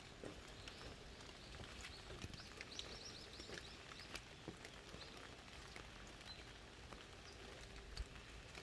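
Faint scattered raindrops dripping and pattering in a wet forest, with a quick run of high bird chirps about three seconds in.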